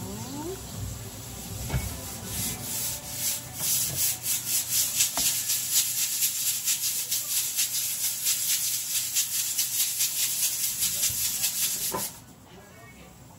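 Fingertips scraping crab shell bits across a wooden cutting board in fast, even rubbing strokes, several a second, which stop suddenly near the end.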